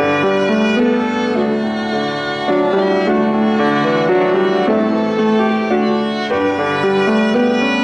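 Violin playing a slow hymn melody in long held notes over grand piano accompaniment.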